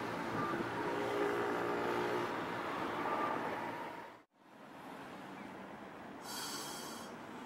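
Street traffic with a Tosaden streetcar and cars passing close by, with a steady pitched hum in the noise; it cuts off suddenly about four seconds in. Quieter traffic noise follows, with a brief high-pitched squeal near the end.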